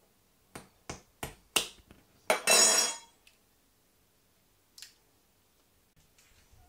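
A cooked crayfish being cracked and peeled by hand: four sharp cracks in the first couple of seconds, then a louder crunchy crackle of shell lasting under a second, and one faint click near five seconds.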